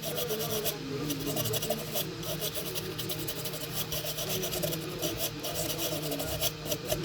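Rapid, continuous scratchy scrubbing on a phone's logic board, cleaning flux residue from around a freshly soldered audio codec chip.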